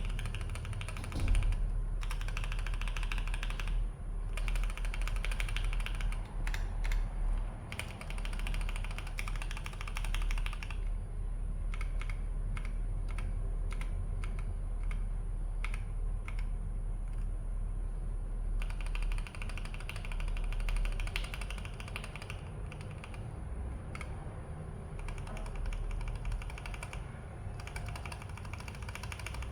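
Keychron K8 Pro mechanical keyboard being typed on: runs of quick keystrokes broken by short pauses, with a stretch of slower, separate key presses in the middle. A steady low hum sits underneath.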